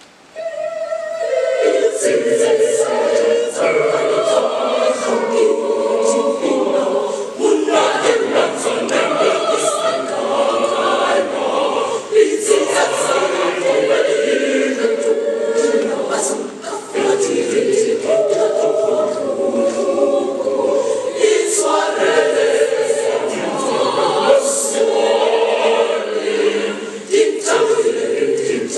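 Mixed school choir of boys and girls singing unaccompanied, starting about half a second in.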